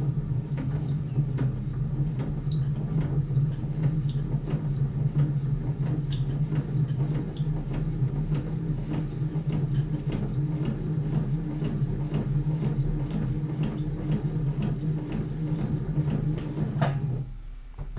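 Electric sewing machine sewing steadily, its motor humming under rapid needle ticks as the needle punches through a paper practice sheet; it stops near the end.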